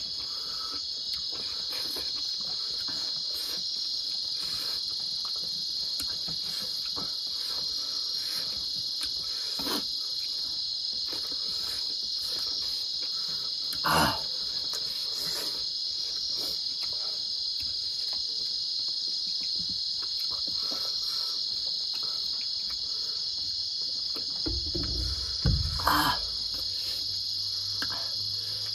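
Steady high-pitched insect chorus. Over it come a few short knocks and smacks from eating by hand: a loud one about halfway through and a cluster of heavier ones near the end.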